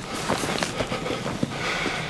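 Close, uneven rustling and crunching as a person moves in dry leaves and brush: short irregular crackles with no steady rhythm.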